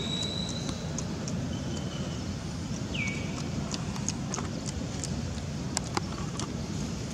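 Steady low rumble with scattered sharp clicks and taps, and a few brief high-pitched chirping calls, each dropping in pitch then holding: one at the start, one about a second and a half in and one about three seconds in.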